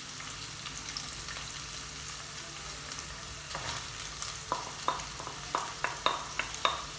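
Onion strips sizzling in hot oil in a pan. From about halfway in, a utensil taps against the pan about nine times as the onions are stirred.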